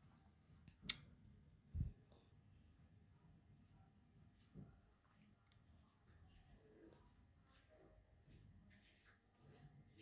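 A cricket chirping faintly and steadily, a high pulsing trill of about seven pulses a second. There is a single click about a second in and a soft low thump just before two seconds.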